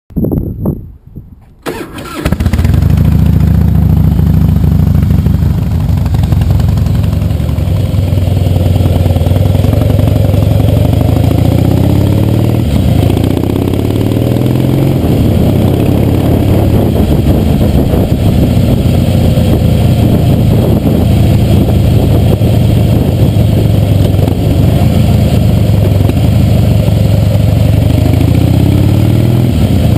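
Harley-Davidson V-twin engine starting about two seconds in, then running loud and close while the motorcycle is ridden, its pitch rising and dropping again and again through the gears.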